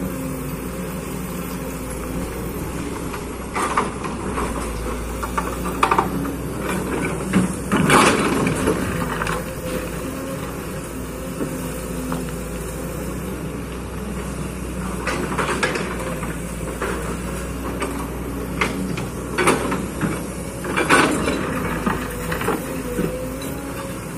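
Kobelco excavator's diesel engine running steadily, with a scatter of knocks and clanks from the machine at work.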